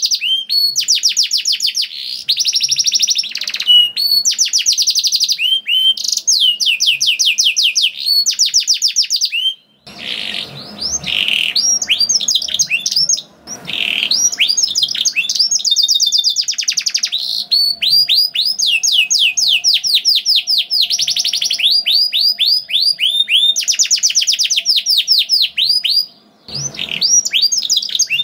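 Domestic canary singing continuously in long, rapid trills and rolls of fast repeated high notes, with a few brief breaks.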